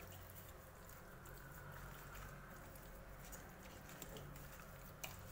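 Faint, soft wet squishing of a hand rubbing marinade into raw chicken drumsticks in a steel bowl, with a light click near the end.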